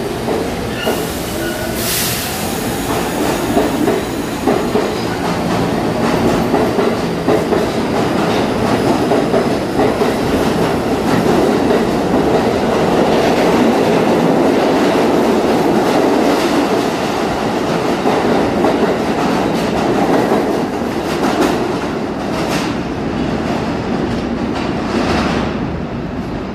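New York City Subway train pulling out of an underground station and passing the platform. A rising whine sounds as it gets under way, then a loud, steady rumble with clickety-clack from the wheels, which eases off as the last cars leave.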